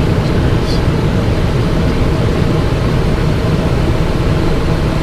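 Steady, even drone inside the cockpit of a Cessna Citation XLS business jet, its twin turbofan engines and airflow noise at an unchanging level.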